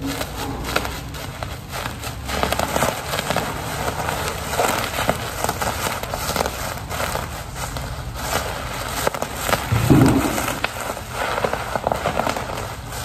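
Blue bubble wrap squeezed and crumpled by hand, its bubbles popping in dense, irregular crackles over the rustle of the plastic. A louder, lower burst comes about ten seconds in.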